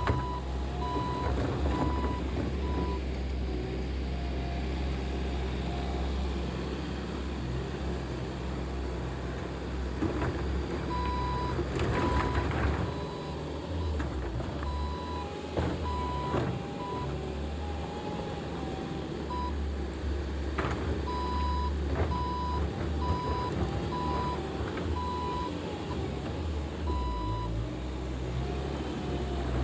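Skid steer loader's engine running with its backup alarm beeping in several runs of short, evenly spaced beeps as it reverses, and a few clanks along the way.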